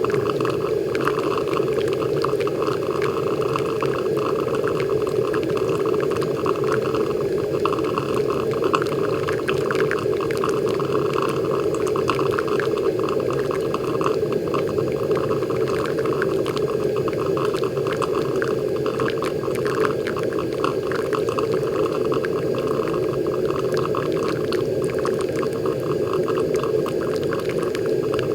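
Technivorm Moccamaster KBGV Select drip coffee maker brewing: a steady gurgling boil of water pushed up through the machine, with water pouring and dripping onto the coffee grounds. A dense patter of small crackles runs through it without let-up.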